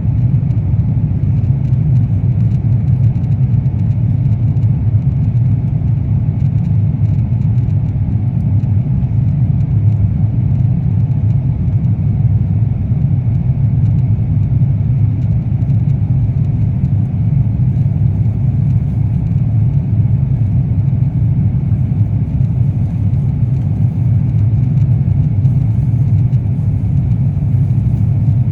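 Steady low rumble inside the cabin of an Airbus A350-900 in flight: the noise of its Rolls-Royce Trent XWB engines and the airflow over the fuselage, unchanging throughout.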